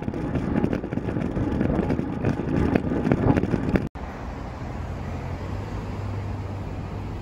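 Wind buffeting the microphone over road and traffic noise while riding. About four seconds in, the sound cuts out for an instant and gives way to a steadier low hum of car traffic.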